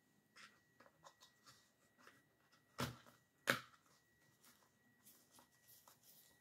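Faint rustling and small clicks of hands working stems and foliage into a flower arrangement, with two sharper clicks about three seconds in.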